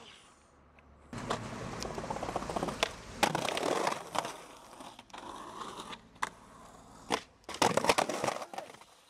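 Skateboard wheels rolling on concrete, broken by sharp clacks of the board, with a louder burst of clattering impacts near the end.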